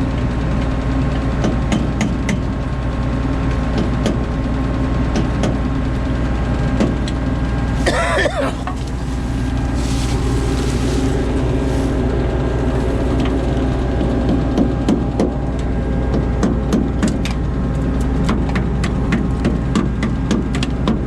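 Combine harvester running steadily: a constant engine and machinery drone with scattered rattles and ticks, and a brief louder burst about eight seconds in.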